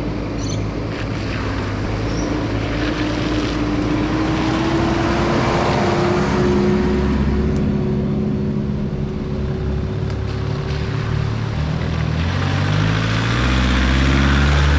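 4WD's engine running under load while driving a dirt track, with steady tyre and track noise; the engine note climbs slowly, and the revs step up near the end.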